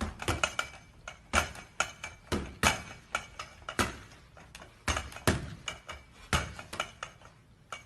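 Boxing gloves landing punches: sharp smacks in quick, irregular flurries, some in fast pairs.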